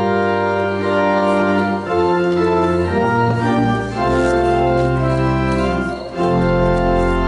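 Church organ playing slow, sustained chords that change every second or so, with a deep bass note coming in about six seconds in.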